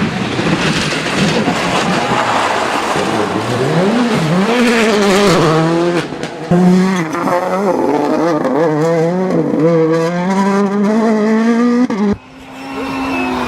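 Rally car engine at full throttle, its pitch climbing and dropping sharply through quick gear changes, under heavy rushing noise for the first few seconds. Near the end the sound cuts abruptly to another engine note that winds down.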